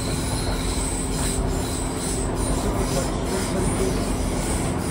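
Steady interior running noise of a British Rail Class 150 Sprinter diesel multiple unit under way: an even rumble and hum from the underfloor diesel engine and the wheels on the rails, with a thin high whistle over it.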